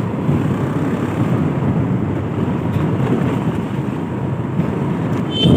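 Motorbike engine running steadily while riding along a dirt road, with wind rushing over the microphone.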